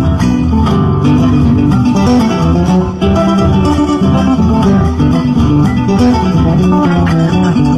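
A gato, an Argentine folk dance tune, played on guitar with an electric bass line plucked fingerstyle on a Herle bass. The music runs on without a break.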